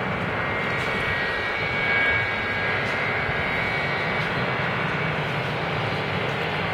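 McDonnell Douglas MD-83 airliner's rear-mounted Pratt & Whitney JT8D turbofans running at taxi power: a steady jet rush with thin high whining tones, swelling slightly about two seconds in as the jet turns toward the listener.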